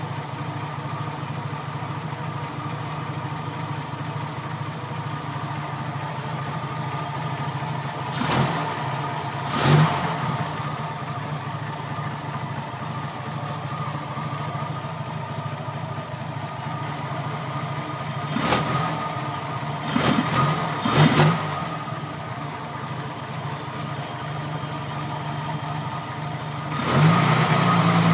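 Dodge B4D pickup's flathead straight-six idling steadily, with several short blips of the throttle. Near the end it rises to a faster, steady run.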